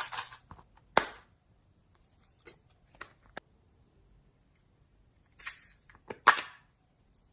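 Slime being squeezed and worked by hand, giving a few sharp pops and short crackling squelches. The loudest snaps come about a second in and again near the end.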